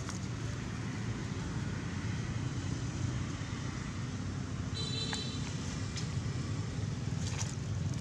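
Steady low rumble of nearby road traffic, with a short high-pitched chirp about five seconds in.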